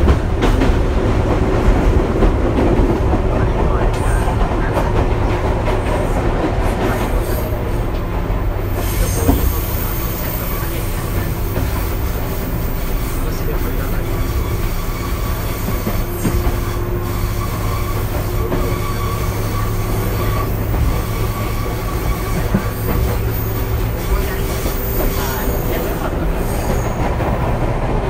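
Onboard running sound of a Fujikyu 6000-series electric train, a converted ex-JR 205-series EMU: a steady rumble of wheels on rail at speed, with a few knocks from rail joints.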